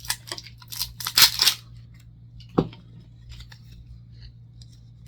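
The seal on the neck of a new liqueur bottle being torn and stripped off: a quick run of scratchy tearing strokes, loudest just over a second in, then a single sharp click and a few faint rustles.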